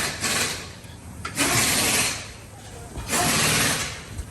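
Pneumatic shop tool hissing in short repeated bursts, about one every second and a half.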